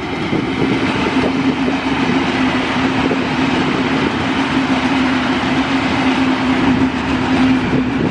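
A train passing close by: a steady rumble and clatter of wheels on the rails, with a steady low hum under it.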